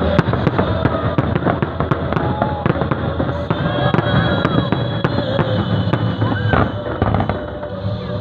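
Fireworks going off in a display: a rapid, irregular string of sharp bangs and crackles.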